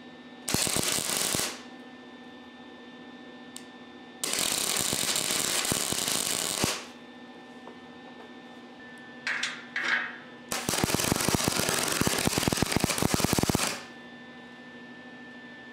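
MIG welder plug-welding holes in a steel bumper: three bursts of steady arc crackle, about one, two and a half and three seconds long. Two short blips come just before the last burst, and a low steady hum runs between the bursts.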